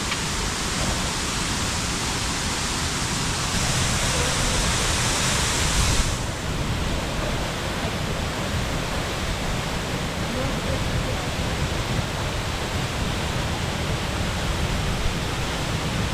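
A big two-tiered waterfall rushing steadily: an even wash of falling-water noise. About six seconds in, its bright hiss abruptly becomes duller.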